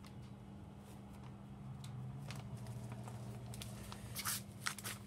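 Scattered light clicks and rustling from a bag of small engine parts being handled, with a few sharper clicks about four seconds in, over a steady low hum.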